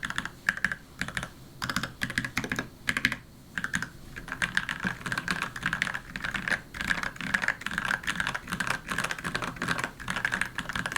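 Typing on a custom mechanical keyboard with a wooden case and C3 Tangerine linear switches: rapid key presses, with a few short pauses in the first few seconds and then steady fast typing from about four seconds in.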